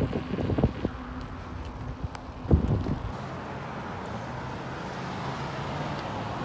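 Wind rumbling on the phone's microphone and the rolling noise of the filmer moving along a paved path, with a few knocks and a heavier bump about two and a half seconds in. It then settles into a steadier rushing noise.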